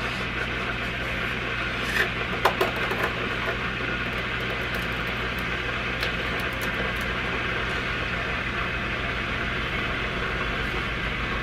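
A steady mechanical hum, with a few light clicks and scrapes of a plastic scoop in a tub of sugar.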